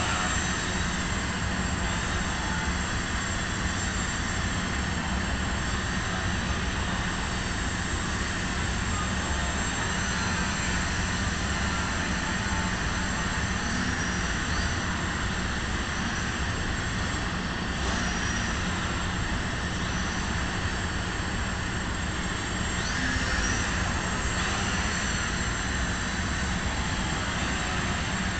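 Small radio-controlled foam aerobatic plane in flight, its electric motor and propeller giving a steady whine and buzz, with a few brief rises and falls in pitch as the throttle changes.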